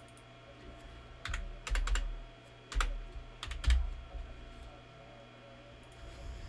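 Keystrokes on a computer keyboard: about eight sharp clicks in three quick clusters between one and four seconds in.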